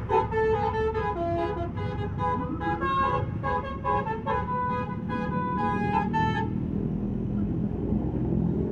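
A Basuri multi-tone telolet horn on a Primajasa bus playing a quick tune of short, changing notes, which cuts off about six and a half seconds in. A low vehicle rumble runs underneath and is left alone after the horn stops.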